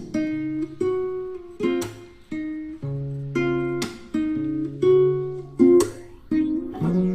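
Background music: plucked guitar notes over a steady beat with sharp percussive hits about once a second.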